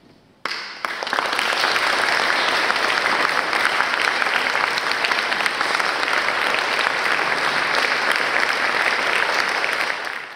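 Audience applause breaking out suddenly about half a second in, after a brief hush following the final note, then continuing as steady, dense clapping that fades out near the end.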